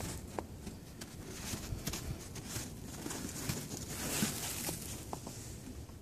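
Soft crunching and patting of snow with scattered light clicks, as a cat steps and paws about in the snow on a car.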